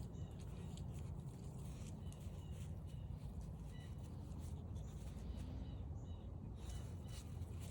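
Footsteps on a forest trail with faint short bird chirps several times, over a steady low rumble.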